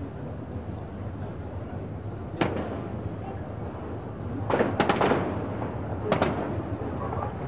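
Distant sharp cracks of gunfire: a single shot about two and a half seconds in, a quick run of about four near the middle, and two more about six seconds in, over steady low background noise.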